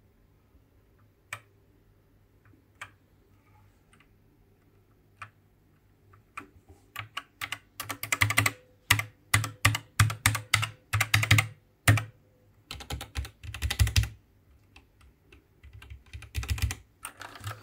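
Mechanical keyboard with linear yellow switches being typed on. A few single keystrokes come first, then fast runs of typing from about six seconds in, a brief pause, and more typing near the end.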